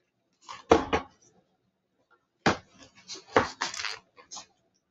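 A paperback picture book being handled close to the microphone: its pages rustle and its cover knocks and scrapes in two bursts of short, sharp noises, one about half a second in and a longer one from about two and a half seconds in.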